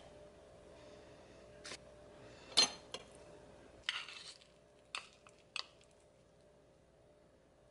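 Metal cutlery clinking and scraping against a ceramic plate: about half a dozen short, sharp clinks. The loudest, about two and a half seconds in, rings briefly, and a short scrape follows about four seconds in.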